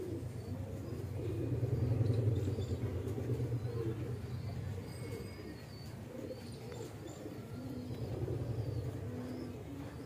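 Domestic pigeons cooing low and soft, swelling about two seconds in and again near the end, with faint higher bird chirps.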